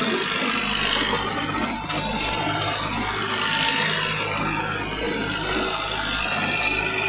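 Tractor engine running steadily under a dense rushing noise.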